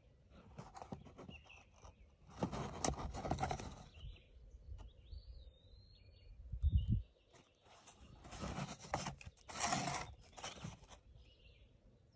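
A cardboard cartridge box handled and turned over in the hand, rustling and scraping in two spells, with a low thump about seven seconds in. A bird chirps briefly in the background.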